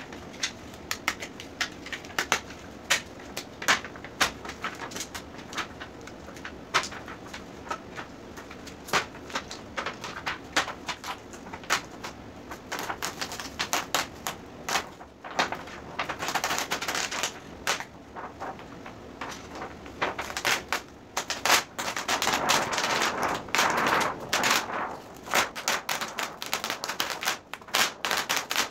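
White plastic reflector sheet of an LED TV backlight being peeled off thick double-sided tape: irregular crackling and ticking, with longer ripping stretches about halfway through and again a little later.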